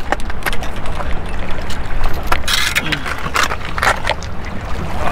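Footsteps and hand-holds on granite jetty rocks: rock-cleat soles clicking and scraping on the stone while climbing down between boulders, over a steady low rumble.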